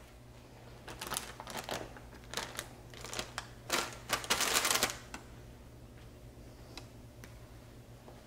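Crinkly rustling of parchment paper and cloth as a parchment-lined cake pan holding a baked sponge cake is handled on a dish towel: a string of short rustles over about four seconds, loudest near the middle, followed by two light clicks.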